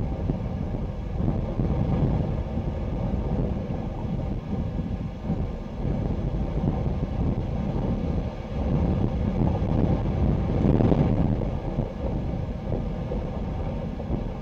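Wind buffeting the microphone in gusts, a rumbling rush that swells and falls, strongest in a gust about eleven seconds in.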